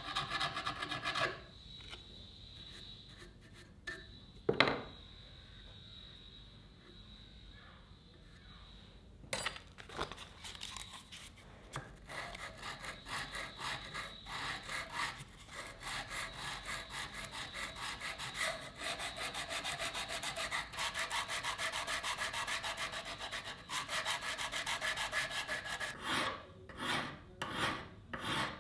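Hand file rasping across a steel knife blank in quick back-and-forth strokes. After a quieter pause of several seconds with one sharp click, the filing resumes steadily and breaks into separate strokes near the end.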